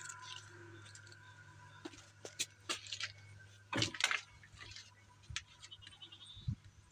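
Handling noise: rustles, clicks and scrapes as a phone is swung past leaves by a wooden porch railing, with the loudest scrapes about four seconds in and a couple of low knocks near the end.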